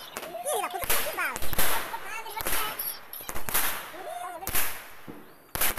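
Fireworks going off: about eight sharp bangs at irregular intervals, with crackling between them.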